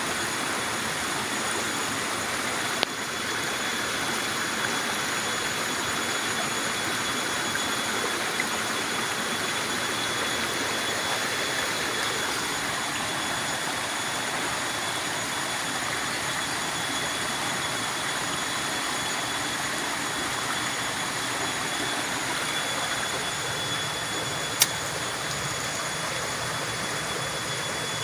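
Steady rushing of flowing stream water, with a sharp click about three seconds in and a louder one near the end.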